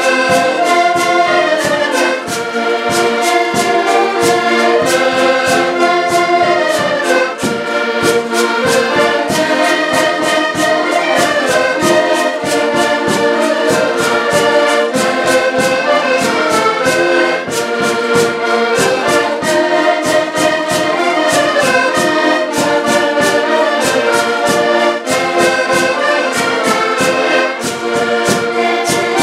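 A group of diatonic button accordions (Portuguese concertinas) playing a lively folk tune together in chords and melody. A notched wooden scraper keeps a steady rasping beat under them.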